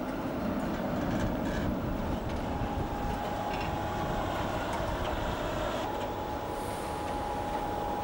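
Electric city tram rolling past close by, a steady rumble of wheels on rails, with a thin steady whine joining about two and a half seconds in.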